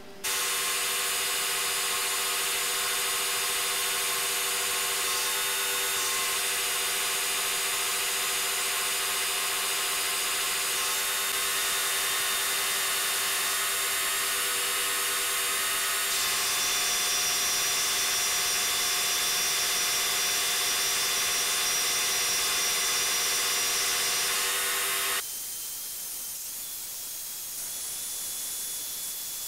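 Bridgeport milling machine cutting a slot in a metal block with an end mill: a loud, steady whine that shifts slightly in pitch a few times. About 25 seconds in it stops abruptly, leaving a quieter steady hiss.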